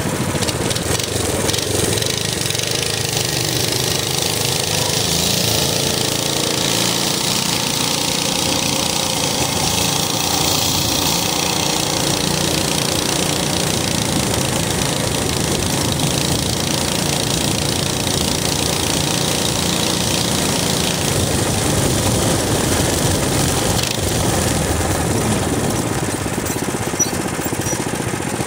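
Minibike's small single-cylinder engine running steadily under way, a chugging small-engine note that holds even throughout.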